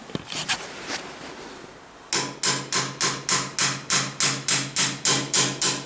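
Hammer tapping on metal: a few light taps, then from about two seconds in a steady run of about fifteen ringing strikes, about four a second, driving the Ford 800 tractor's rocker-arm oil line tube down to seat it fully.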